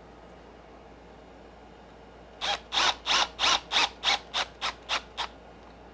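Cordless drill-driver driving a small hex screw into an RC truck's center brace, run in about ten short bursts that get shorter and quicker toward the end.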